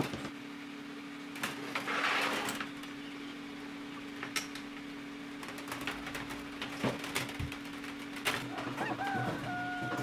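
Thin copper tubing being handled and wound around a steel sleeve: scattered light clicks and metal taps, with a brief rustle about two seconds in, over a steady low hum. A few short high tones that bend slightly come near the end.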